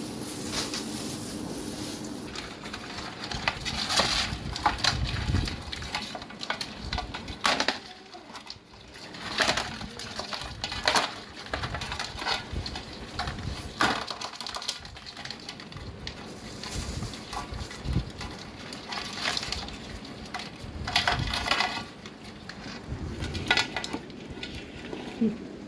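Crabs scrabbling, their shells and legs clicking and scraping in irregular crunchy bursts with occasional louder knocks.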